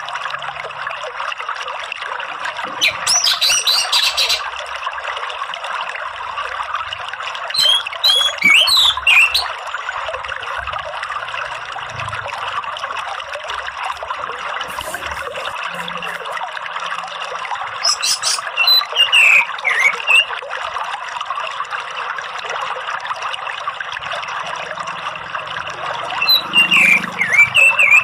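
Steady running-water noise with orange-headed thrush (anis merah) song over it. Short bursts of quick, high twittering and chirping phrases come in four times.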